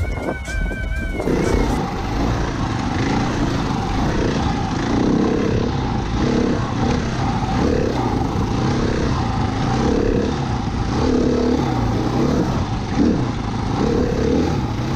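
A siren wail cuts off about a second in. A dual-sport motorcycle's engine then runs steadily while riding along a sandy dirt trail, with wind noise on the microphone.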